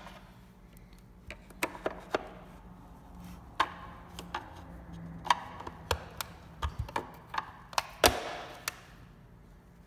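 Flathead screwdriver clicking and tapping against the plastic housing and clips of a 2012–2015 Honda Civic side mirror as it pushes out the painted cap's retaining tabs. The clicks are scattered and irregular, the sharpest about eight seconds in.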